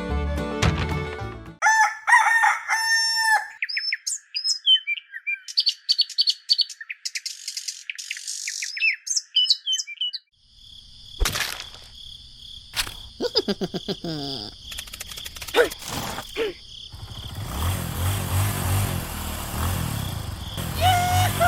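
Bird calls: one long crowing call, then a run of quick high chirps. After a sudden break about halfway through come a few sharp knocks and a stretch of clattering noise.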